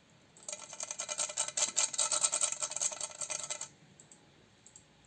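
A quick run of rasping, scraping strokes for about three seconds, stopping abruptly, like a hard utensil worked fast against a surface.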